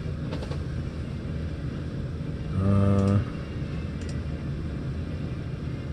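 Steady low rumble of room noise, with a few light clicks from the laptop and a brief low steady hum, about half a second long, a little over two and a half seconds in.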